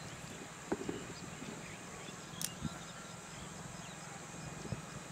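Quiet outdoor background with a few faint isolated clicks and small knocks, and faint high chirps.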